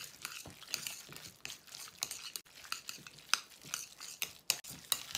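Minced raw prawn mixture being stirred in a ceramic bowl: wet, sticky squelching with irregular clicks and taps of the utensil against the bowl.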